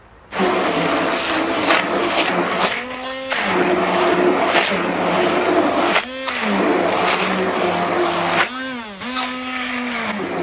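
Corded electric stick blender running in a bucket of thick wet mash, a steady motor whine that starts just after the beginning. Its pitch dips and recovers about three times as the motor slows and picks up again.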